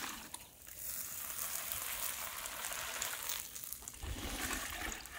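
A heap of freshly roasted, still-hot cashew nuts in their shells sizzling and hissing after being doused with water to cool them. The hiss fades about three and a half seconds in, and a low rumble follows near the end.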